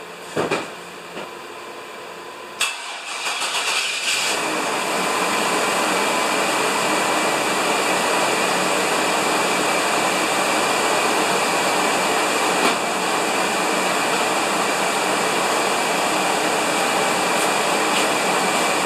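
A 1990s Chevrolet pickup's engine cranking with a hesitation, then catching about four seconds in and running steadily at idle. The hesitation comes from the battery sitting below 12 volts after long storage. A short knock sounds about half a second in, before the cranking.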